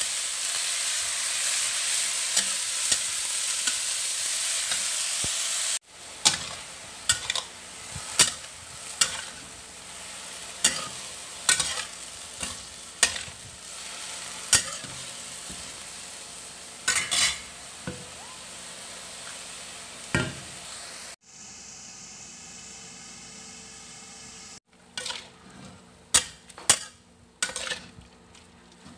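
Shredded young papaya sizzling in oil in a wok while being stir-fried, with a spatula clacking and scraping against the pan. The sizzle is loud and steady for the first few seconds, then quieter and broken by many sharp spatula knocks. About two-thirds of the way in there is a short quieter stretch with a faint steady hum.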